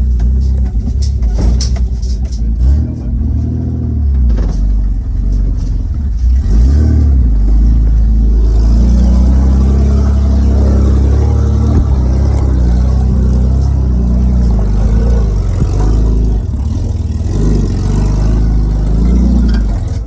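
Straight-piped Nissan Patrol's RB30 straight-six with the exhaust cut off, running loud and revving up and down repeatedly as it is driven off-road. A few sharp knocks come in the first few seconds.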